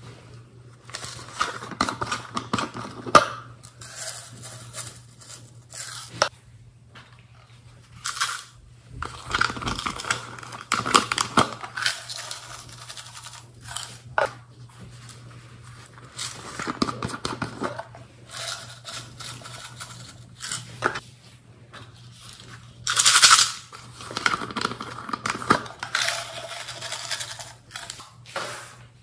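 Small plastic sequins and glitter shaken out of a plastic tub and pattering onto slime in a glass tray, in several separate rattly bursts. A faint steady low hum runs underneath.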